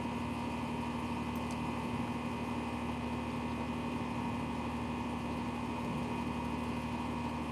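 A steady machine hum at one constant pitch, with no change in level.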